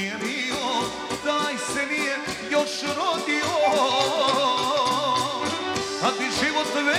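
Live Serbian folk band music between sung verses of a song: a lead melody full of quick trills and bends over a steady accompaniment and bass.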